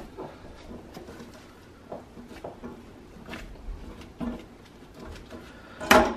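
Handfuls of ground sausage meat being scooped from a plastic tub and packed into the steel cylinder of a vertical sausage stuffer: scattered soft pats and squishes, with one sharp knock near the end.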